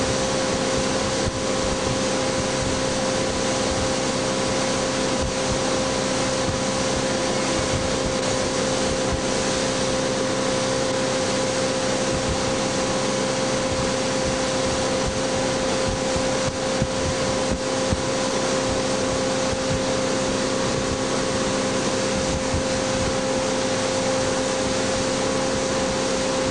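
Motorboat engine running at a steady towing speed, heard from on board, with a loud constant rush of wind and water over it.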